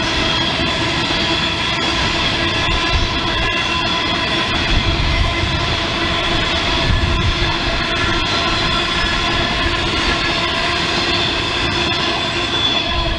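SSR grain hopper wagons of a freight train rolling past with a steady rumble, the wheels keeping up a steady squeal of several ringing tones, and occasional clicks as wheels cross rail joints.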